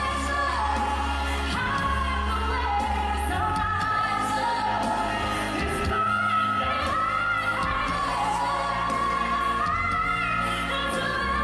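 A female singer singing a ballad live over band accompaniment, with long held notes.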